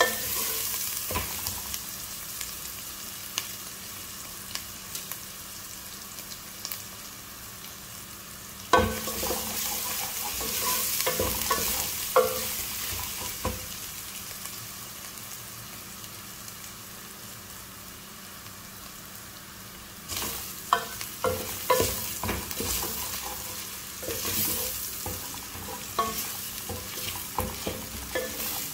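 Garlic and ginger sizzling in hot oil in a metal pot as a wooden spoon stirs them, scraping and knocking against the pot. The knocks come in spells: a loud one about nine seconds in and a run of them from about twenty seconds on. The garlic and ginger are being fried only until their colour just changes, not to golden.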